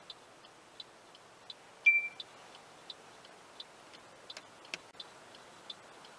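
Car's turn-signal indicator ticking steadily inside the cabin, about three ticks every two seconds, with one short high beep about two seconds in.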